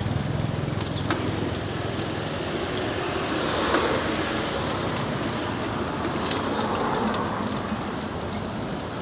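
Roadside food-stall ambience: a steady hiss with scattered clicks and a faint low hum in the first couple of seconds.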